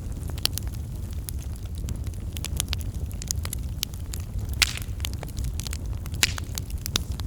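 Wood fire burning in a fireplace, crackling with frequent sharp pops over a steady low rumble, with a few louder pops about halfway through and near the end.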